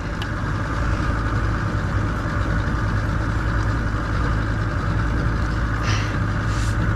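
Boat engine idling, a steady low drone, with a brief hiss about six seconds in.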